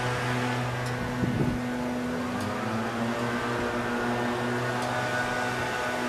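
Steady low hum made of several held tones, which shift slightly in pitch a little over two seconds in.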